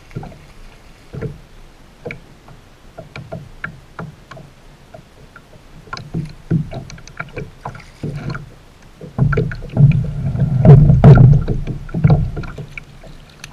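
Water lapping and knocking against a stand-up paddleboard, with scattered light taps and clicks. A much louder low rumbling stretch with knocks comes for about three seconds near the end.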